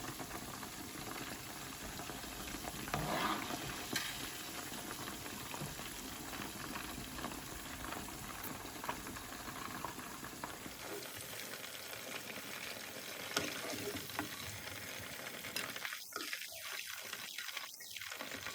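Chicken pieces frying in hot oil in a pan, a steady sizzle, with a few light knocks of a utensil stirring them.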